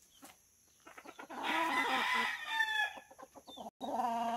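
A native chicken rooster crowing once, starting about a second and a half in and falling away near the end, with chickens clucking around the coop.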